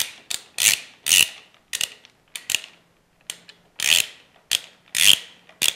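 Hand ratchet clicking in short, irregular bursts, about two a second, as it runs in the top bolt of a Harley-Davidson Twin Cam hydraulic cam chain tensioner.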